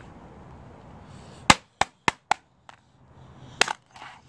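Claw hammer smashing an old laptop: a quick run of four sharp blows starting about a second and a half in, a lighter tap, then one more hard blow near the end.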